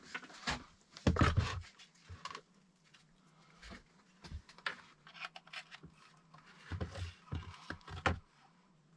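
Scattered knocks, scrapes and rustles of things being handled and moved about inside a small dugout, the loudest cluster about a second in.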